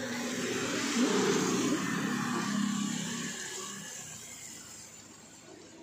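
A car passing along a wet street. The sound swells to its loudest between about one and three seconds in, then fades away.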